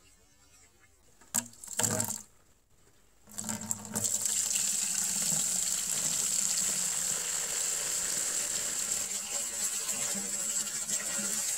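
Old gasoline pouring in a steady stream from a removed car fuel tank into a plastic bucket, starting about three and a half seconds in. A couple of loud knocks come just before, around a second and a half in.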